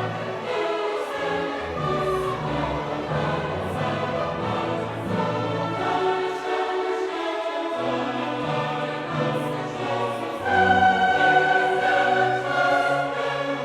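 Background choral and orchestral music with long held notes, growing louder about ten seconds in.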